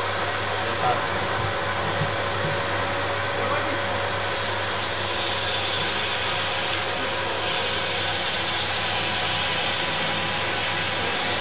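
Vacuum cleaner running steadily with its suction hose pushed into a plastic drain pipe, sucking out loose bits of stone and concrete. A constant hum under an airy rush, the rush growing a little brighter about halfway through.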